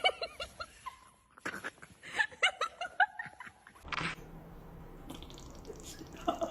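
A person laughing in quick repeated bursts, two bouts over about three seconds, then a steady low hum after a sudden change in the background.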